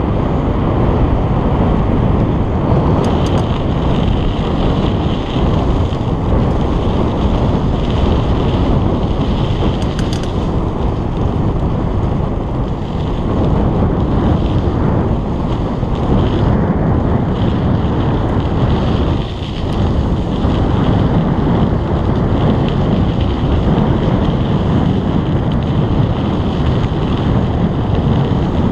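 Wind buffeting a GoPro's microphone on a moving bicycle: loud, steady, low wind noise mixed with road noise from the ride, which dips briefly about two-thirds of the way through.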